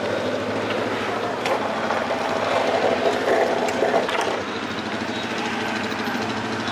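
City street traffic noise: passing cars and engines with a steady low hum, swelling a little in the middle.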